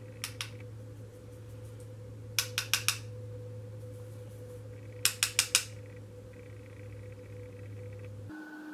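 Sharp taps in quick runs, first two, then four, then four or five, as a makeup brush and powder container are handled. They sit over a steady low hum that changes abruptly near the end.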